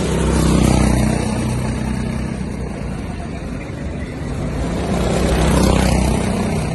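Go-kart engines running on the track. The sound swells louder as a kart passes close, about half a second in and again around five and a half seconds in.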